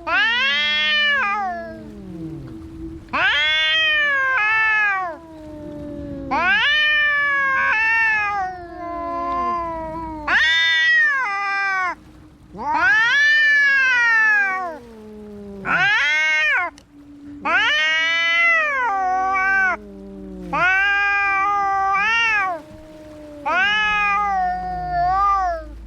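Cats caterwauling at each other in a fight: about eight long, drawn-out yowls that rise and then fall in pitch, with a lower, falling wail overlapping them.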